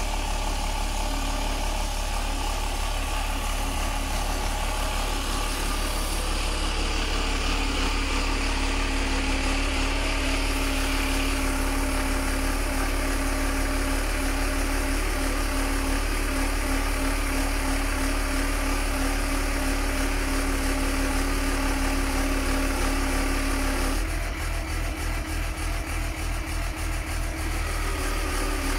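Truck engine running steadily while driving the hydraulics of a Palfinger SPK23500 knuckle-boom crane as the boom unfolds and lifts, with a steady hum and a held tone over it. Near the end the sound turns slightly quieter and pulsing.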